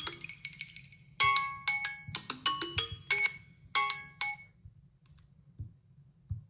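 Samsung phone's alert tone: a bright chiming melody of quick mallet-like notes. It rings out one phrase and stops about four and a half seconds in, followed by two faint thumps.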